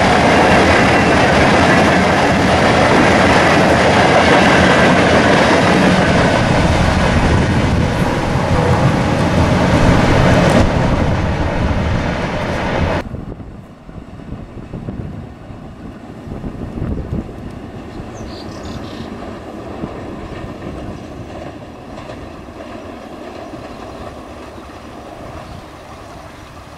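Nilsagar Express passenger coaches running past close by on the track, a loud, steady rolling rush. About halfway through it cuts off suddenly to a much quieter low rumble as the train draws away into the distance.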